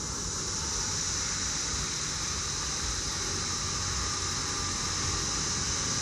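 Passenger train running away into the distance: a steady low rumble under an even, steady high hiss.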